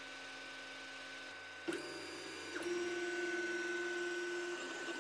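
Anycubic i3 Mega 3D printer running, its fans and stepper motors whining: a steady high tone throughout, two short clicks, then about two seconds of a lower, steady stepper-motor whine as the print head moves.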